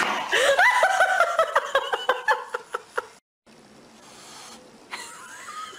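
A person laughing in a quick run of high-pitched "ha"s, with scattered light clicks, for about three seconds; it then cuts off abruptly and only faint room noise is left.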